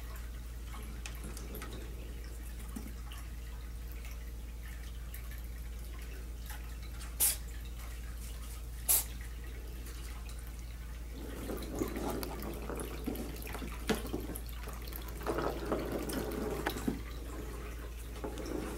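Plastic ball rolling and knocking around a circular plastic track toy as kittens bat at it: two sharp clicks in the middle, then a longer stretch of irregular rattling over a steady low hum.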